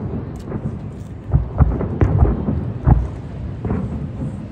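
Aerial fireworks shells bursting in a rapid string of deep booms, densest between about one and three seconds in.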